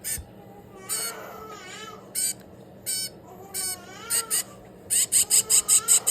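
A 22-day-old hand-reared baby finch giving high, thin begging calls while being fed. The calls come singly at first, then run into a rapid, even series of about five a second near the end.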